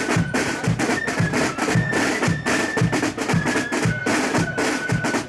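Marching flute band playing a march: a high melody line over rattling snare drums and a bass drum keeping a steady marching beat.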